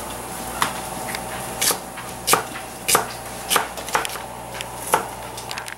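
A large kitchen knife chopping an onion on a thick wooden cutting board: about eight sharp knocks, spaced unevenly about half a second to a second apart.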